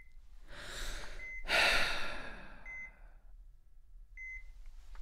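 A man draws a deep breath and lets it out in a long sigh, the loudest sound here. Under it a hospital patient monitor beeps steadily, one short beep about every second and a half.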